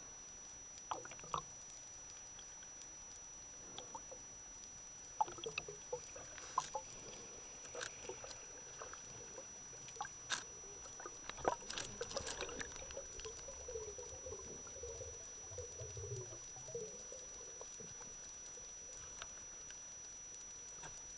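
Underwater sound picked up by a camera in a waterproof housing: scattered sharp clicks and crackles, thickest in the middle, with a faint steady high whine throughout. A wavering bubbling gurgle runs through the second half.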